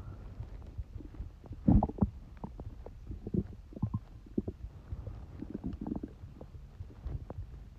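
Human stomach rumbling and gurgling in an irregular run of low gurgles and short squelches, the loudest a burst about two seconds in.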